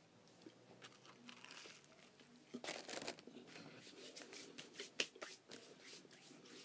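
Biting into a toasted sourdough bacon cheeseburger and chewing it close to the microphone: crackly tearing and crinkling noises, a louder bite about two and a half seconds in and a sharp click about five seconds in.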